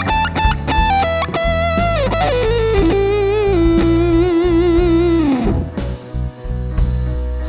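Distorted electric guitar lead through the Nux Amp Academy's Slo 100 high-gain amp model, played over a blues backing track with drums and bass. It plays a quick run of single notes, then holds one long note with vibrato that slides down about five and a half seconds in.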